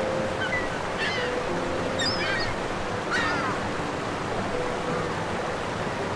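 Steady rushing noise like surf or running water, with a few short chirping animal calls about one, two and three seconds in, over soft held music notes.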